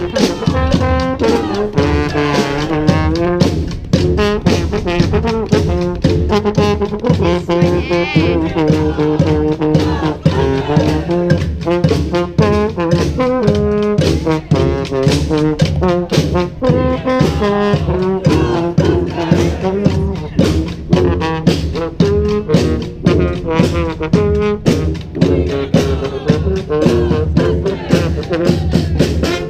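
Street brass band playing: trombones and trumpets carrying the tune over a steady, driving percussion beat.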